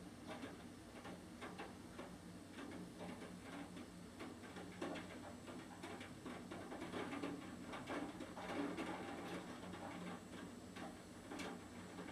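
Raindrops tapping irregularly, many small ticks a second, over a low steady hum.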